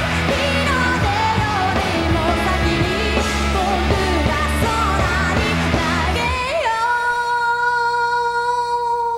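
Female vocalist singing live over a full rock band. About six and a half seconds in the band stops and she holds one long final note alone.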